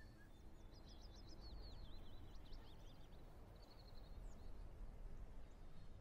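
Faint birdsong: a run of quick chirps in the first half and a short trill about four seconds in, over a low steady ambient rumble.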